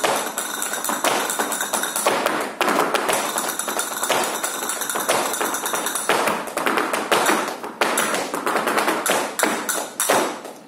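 Tap dancer's shoes striking a stage floor in fast, rhythmic runs of taps, breaking off briefly a couple of times.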